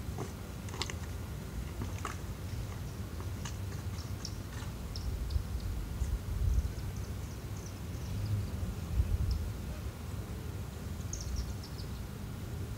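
Small birds chirping in short, high, scattered calls, over a steady low rumble. A few light taps come in the first few seconds.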